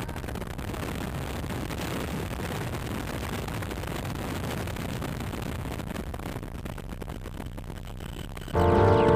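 Steady helicopter noise heard from inside the cabin, an even rushing drone with no engine pitch standing out. Loud music with drums comes in near the end.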